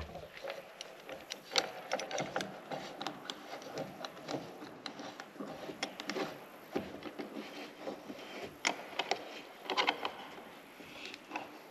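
Steel C-clamps being fitted and screwed tight against a block on a plastic tank's rim: irregular metal clicks, clinks and scraping, with a small cluster of louder knocks near the end.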